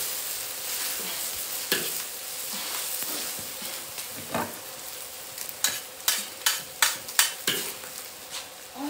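Food sizzling in a hot pan as a stir-fry is stirred, close to cooked, with the spatula scraping and knocking against the pan; a quick run of about half a dozen sharp knocks comes in the second half.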